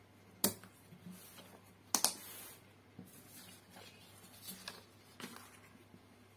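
Papers and a binder handled on a tabletop: a sheet slid and set down, with two sharp clacks about half a second and two seconds in, then a few lighter taps.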